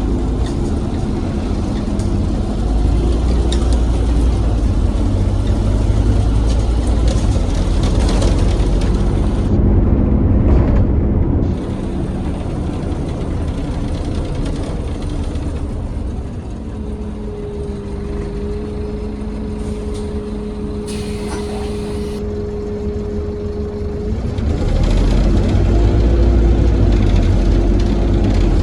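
Bus engine running, heard from inside the bus, a loud steady drone. About a third of the way through it drops quieter to a steady hum, then grows louder again near the end.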